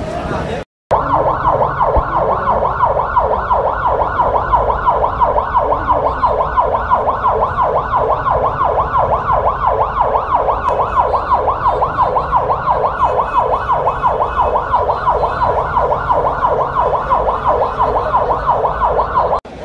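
Emergency vehicle siren in a fast yelp, its pitch sweeping up and down about four to five times a second. It starts abruptly about a second in and cuts off just before the end.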